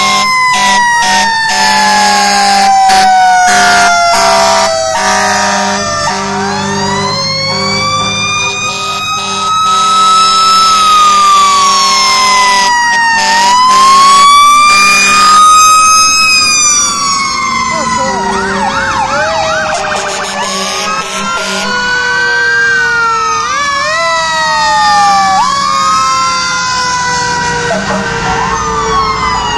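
Several fire engine sirens wailing at once, each rising and falling at its own pace so that they overlap. A steady, blaring low tone sounds under them for about the first ten seconds.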